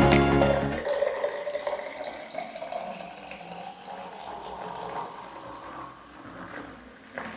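Sprite poured in a thin, steady stream from a plastic bottle into a glass jar of washing-powder solution, the pitch of the pour rising as the jar fills.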